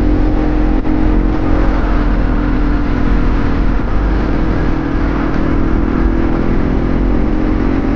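Hero Impulse motorcycle's single-cylinder engine running at a steady road speed while being ridden, with a steady rushing noise over it.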